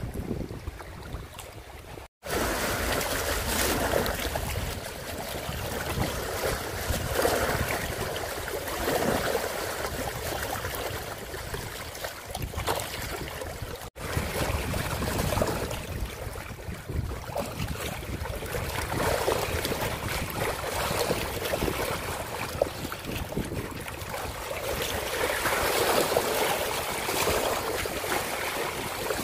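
Small lake waves lapping and splashing against shoreline rocks, in surges, with wind buffeting the microphone. The sound drops out briefly twice.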